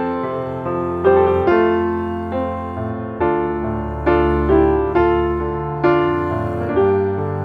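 Background piano music: sustained chords with new notes struck about once a second, each fading slowly.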